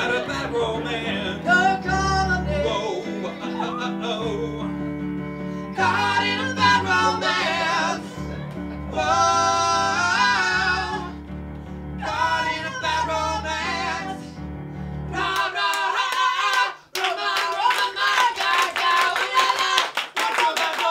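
Female voice singing pop melody live, accompanied by electric keyboard chords and bass notes. About fifteen seconds in the keyboard stops, and the singing goes on over rapid hand clapping.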